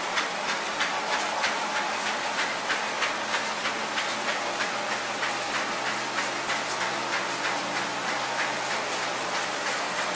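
Sawdust rotary drum dryer running: a steady mechanical noise with a low hum and a regular clatter of about three knocks a second.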